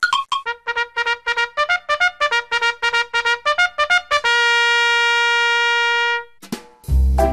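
Background music: a quick run of short, bright notes, then one long held note lasting about two seconds. After a brief pause near the end, a new tune with a heavy bass beat starts.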